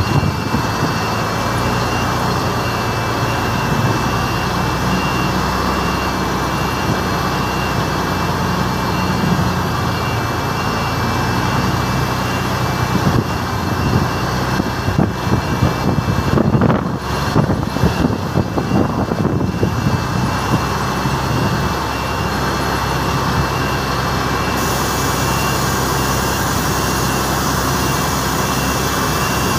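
Heavy truck's diesel engine running steadily as the tractor-trailer rolls slowly, with a thin steady high whine over the engine. About halfway through there is a few seconds of uneven rumbling and knocking.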